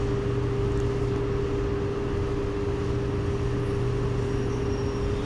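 Steady hum inside a C751B metro train car standing at a platform, with one steady mid-pitched tone that cuts off near the end.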